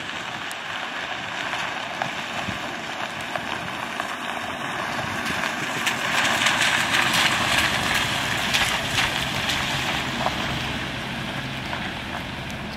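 Steady rain hiss with a pickup truck coming up the wet road. Its tyres swish loudest about halfway through as it comes close, and a low engine hum carries on to the end.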